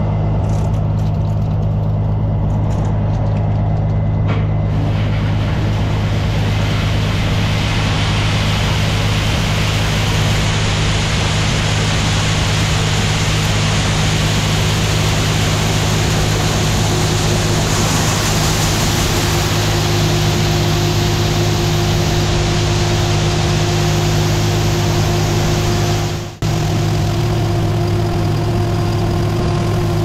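Heavy diesel engines of a combine and tractor running with a steady low hum, joined after about five seconds by the rushing hiss of shelled corn pouring from the combine's unloading auger spout into a grain cart. A brief dropout comes near the end.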